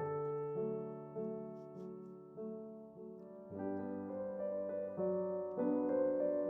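Background music: soft piano chords, easing off in the middle and growing louder again in the second half.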